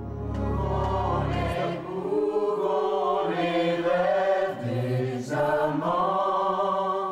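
Voices singing long held notes in several phrases, with short breaks between them. A deep low note sounds under the first phrase for about a second and a half.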